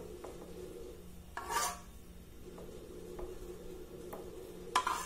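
Metal spoon scraping and clinking against a stainless pan while thick white sauce is spooned out, a few light knocks with a sharper one near the end, over a steady low hum.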